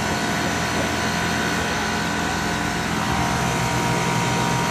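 New 3-ton Goodman split-system condensing unit running steadily just after start-up: a steady compressor hum with the outdoor fan, while the system is still stabilizing.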